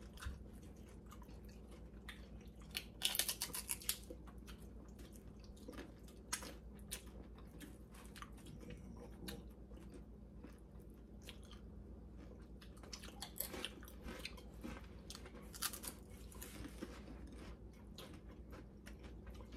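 People chewing and crunching nachos and tacos, a quiet scatter of crisp crunches and mouth sounds, busiest about three seconds in and again from about thirteen to seventeen seconds.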